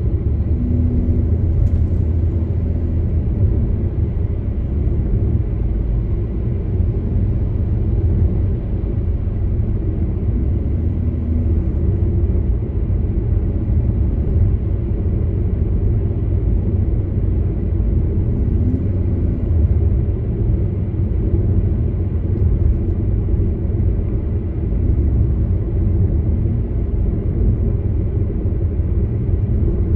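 Steady low rumble of a car being driven on the road: engine and tyre noise.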